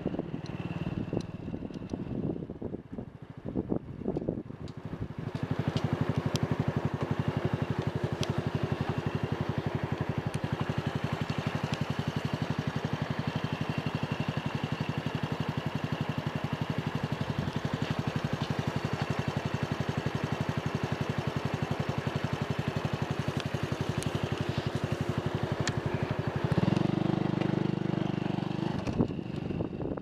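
Motorcycle engine idling steadily with a fast, even beat after the bike comes to a stop. Near the end it gets louder as the bike pulls away.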